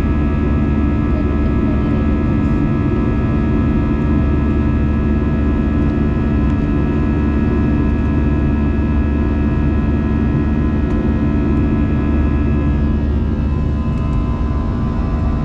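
Airbus A320's turbofan engines heard from inside the cabin during the climb after takeoff: a steady low rumble with several steady pitched tones over it. The higher tones soften a little near the end.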